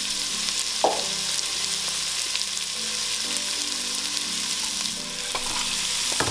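Onion and garlic sizzling steadily as they fry in a pan of leftover goat-meat gravy, stirred now and then, with a short clink of the utensil on the pan about a second in.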